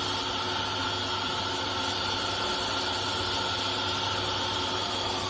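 CNC router with a carousel automatic tool changer running: a steady machine hum with several fixed whining tones over an even wash of noise.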